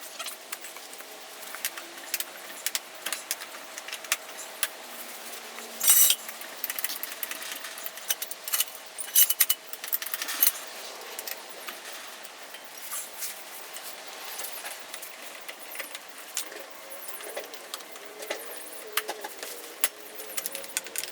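Metal hand tools and wheel lug nuts clicking and clinking irregularly as a wheel is being removed, with a few louder clanks about six seconds in and again around nine to ten seconds.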